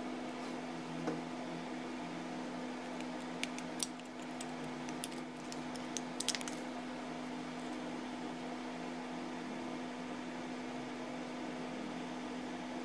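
Small sharp clicks and taps of plastic and metal as a pager's casing is pried apart with a small screwdriver: a few scattered ones from about three seconds in, and a quick cluster just after six seconds. A steady low hum runs underneath.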